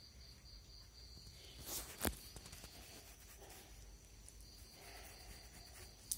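Two cats eating cooked rice from a plastic tray: faint eating sounds, with a sharp click about two seconds in, over a steady high-pitched trill in the background.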